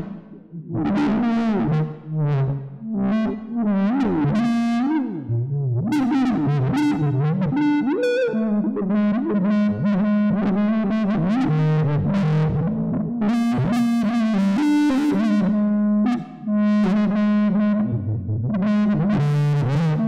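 Electric guitar run through computer-controlled effects, improvising on birdsong-like phrases: distorted, synth-like notes that slide in pitch over held low tones. The playing breaks off briefly about half a second in and again about sixteen seconds in.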